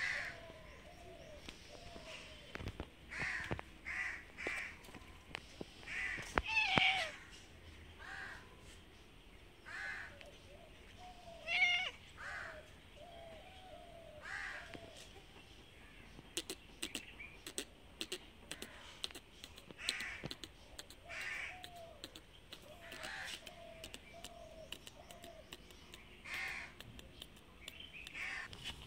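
Crows cawing again and again, short harsh calls at irregular intervals, with scattered short clicks in the second half.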